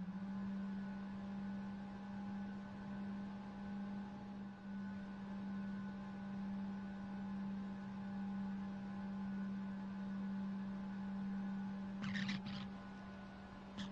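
Steady drone of a propeller aircraft's engine and propeller heard from an onboard camera, one constant low tone with fainter higher tones above it. A short rush of noise comes about twelve seconds in, and a sharp click at the very end.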